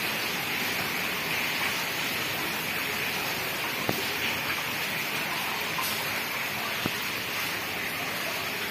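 A steady rush of running water, with two faint knocks about four and seven seconds in.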